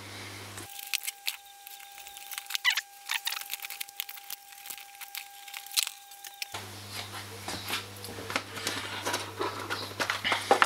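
Hands handling a hard plastic Helicoil thread-insert kit case on a wooden workbench: a string of light clicks, taps and rattles as it is picked up, turned over and set down.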